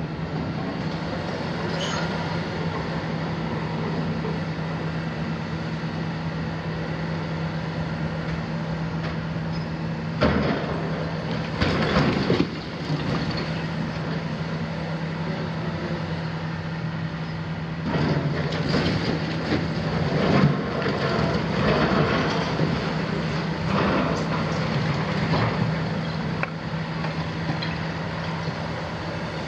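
Hitachi 350 long-reach demolition excavator's Isuzu six-cylinder diesel running steadily, while its bucket pulls down a concrete block wall. Concrete and masonry crash and clatter down about ten seconds in, again around twelve seconds, and in a run of crashes from about eighteen to twenty-five seconds.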